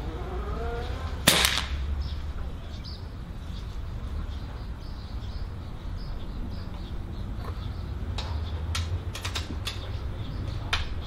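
A single shot from a Cometa Orion bullpup .22 (5.5 mm) PCP air rifle about a second and a half in: one sharp crack with a short tail. A few small mechanical clicks follow near the end.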